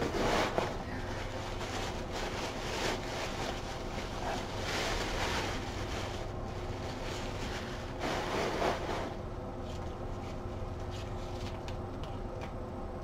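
White packing wrap being pulled out of a cardboard box and crumpled, rustling and crinkling in several irregular surges that die down after about nine seconds.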